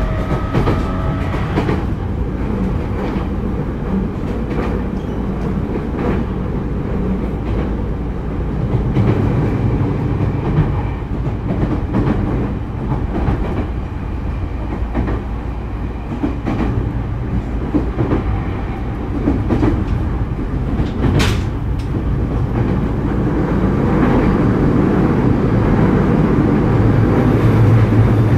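Running sound inside a motor car of a JR East E231-series 0 electric train: the steady rumble of traction motors and wheels on rail, with occasional short clacks, growing louder near the end.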